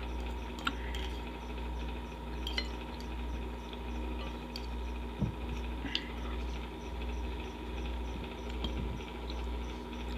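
A metal fork clinking and scraping against a ceramic bowl several times, short sharp clicks scattered through, over the steady hum of an electric fan.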